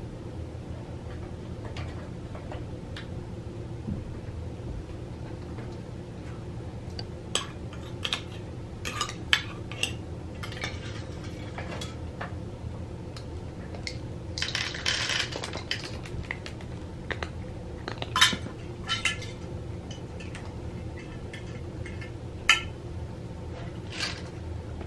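Dry cat kibble rattling and clicking in a plastic treat-dispensing feeder as a cat paws at it to knock crunchies out: scattered sharp clicks, with a longer rattle about halfway through. A steady low hum runs underneath.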